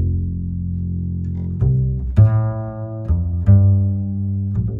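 Background music carried by low, held bass notes that change about every second.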